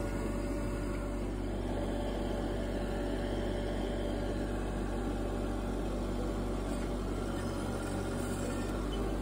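Tym T264 compact tractor's diesel engine running steadily at an even pace while it works the front loader.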